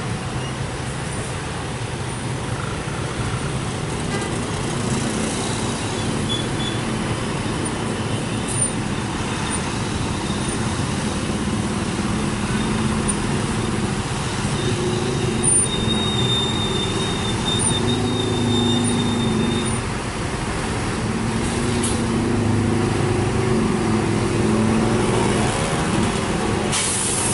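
Slow, congested road traffic: a coach's diesel engine running close by while it crawls in a jam, with motorcycles and a truck, as a steady hum. A faint high whine comes in for a few seconds around the middle.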